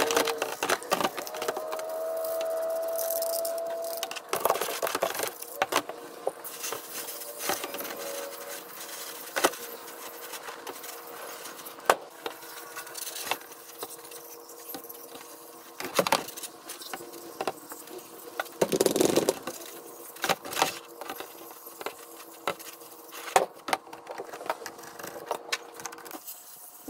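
Hands scrubbing a Stihl FS38 string trimmer with a brush in a plastic tub of degreaser foam: irregular knocks and clatters as the trimmer's plastic housing, shaft and loop handle bump against the tub, with stretches of brush scrubbing. A faint steady hum lies underneath.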